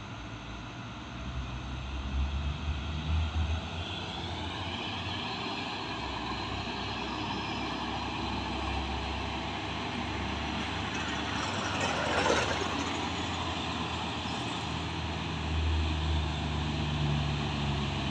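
Heavy diesel cargo trucks climbing a hill under full throttle, a steady low engine drone that swells as the nearest truck approaches near the end. A short, sharper burst of noise stands out about two-thirds of the way through.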